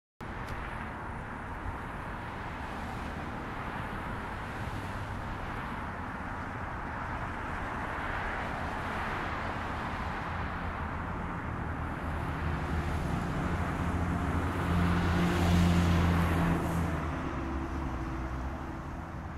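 Steady road-traffic noise, with a motor vehicle passing that grows louder to a peak about three-quarters of the way through and then fades.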